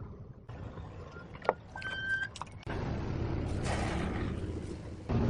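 A car creeping forward on concrete: low engine and tyre noise, with a few sharp clicks and a brief steady tone about two seconds in.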